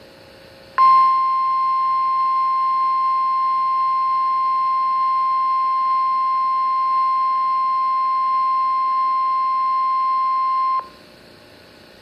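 NOAA Weather Radio 1050 Hz warning alarm tone from a weather radio: one steady high beep held for about ten seconds, starting just under a second in and cutting off sharply. It is sounded as the weekly test of the radio alarm system.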